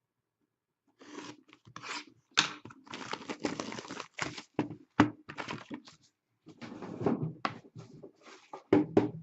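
Packaging torn open and crinkled by hand: the wrapping of a sealed box of hockey trading cards being ripped off. The rustling is irregular, with a few sharp snaps.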